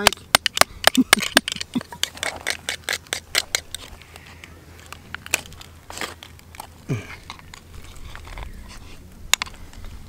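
Oyster shells clicking and cracking as they are handled and prised open with a screwdriver. A rapid run of sharp clicks fills the first few seconds, then a few scattered ones follow.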